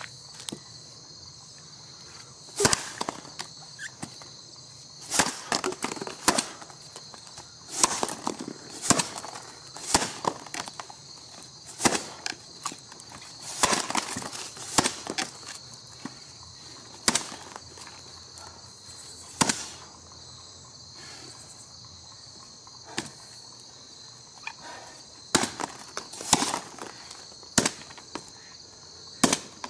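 Axe blade striking into a log in an underhand chop, chopper standing on the log: a series of sharp, solid chops, one every second or two, with wood chips splitting off. A steady high hiss runs underneath.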